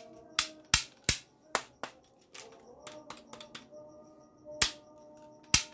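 Sharp plastic clicks and snaps from a camouflage toy AK-style rifle being handled and its parts fitted together, about a dozen in all, irregularly spaced, with a cluster of small ticks in the middle and loud snaps near the end. Faint background music runs underneath.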